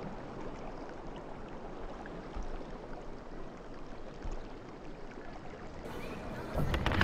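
Steady outdoor background noise, like open-air ambience, with a few sharp clicks near the end.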